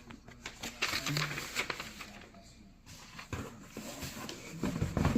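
Paper and packaging rustling and crinkling as a coupon card is pulled out and handled, with a few light clicks and knocks, busiest in the first couple of seconds.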